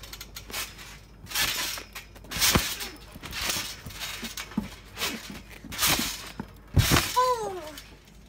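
A large inflatable exercise ball bouncing on a trampoline mat. It gives a string of thumps and short bursts of rattling noise from the mat and frame, about five big hits and smaller knocks between them. Near the end there is a brief cry that falls in pitch.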